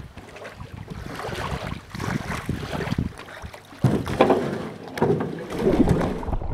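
Canoe being handled at a rocky shoreline: water sloshing against the hull, with a sudden louder bump about four seconds in.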